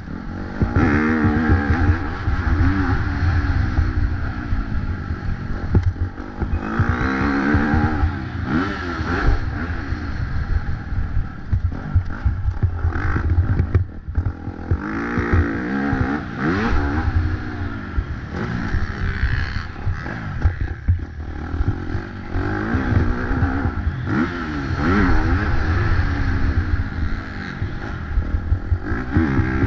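A Husqvarna FC 250 four-stroke single-cylinder motocross engine, heard onboard and close to the microphone. It revs up and drops back again and again as the rider opens and closes the throttle and shifts through the gears. A steady low rumble runs underneath.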